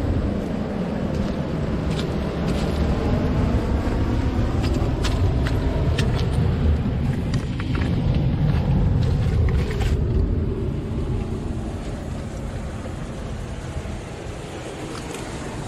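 Low rumble of wind on the microphone and surf breaking on the shore, with scattered crunches of footsteps on coral rubble and pebbles; the rumble eases after about ten seconds.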